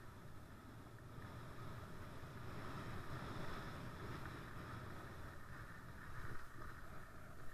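Skis sliding on packed snow with wind rushing over a head-mounted camera during a downhill run: a steady rushing noise that swells over the first few seconds.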